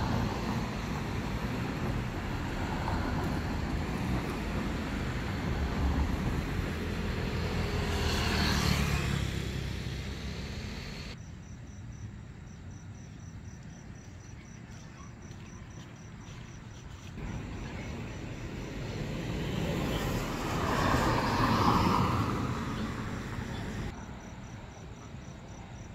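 Vehicles passing on the road, the traffic noise swelling and fading twice, loudest about nine seconds in and again near twenty-two seconds. In the quieter stretches between, crickets chirp in a steady, even pulse.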